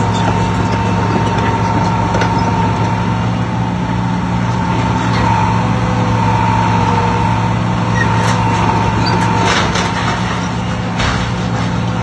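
Hydraulic excavator's diesel engine running steadily, with a steady high whine over it, while it knocks down a building's front canopy: scattered knocks and cracks of breaking material, gathering into a cluster about ten seconds in.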